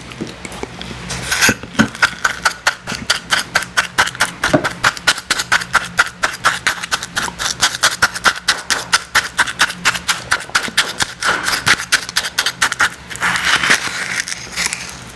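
Icy slush crunching in rapid, even strokes, about four or five a second, stopping near the end.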